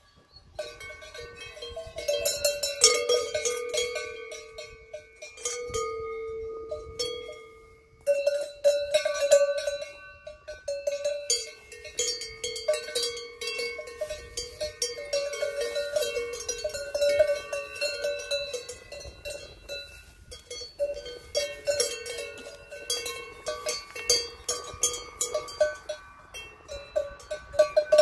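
Cowbells on grazing cows' collars clanking irregularly as the animals move their heads to crop grass, at least two bells of different pitch ringing together.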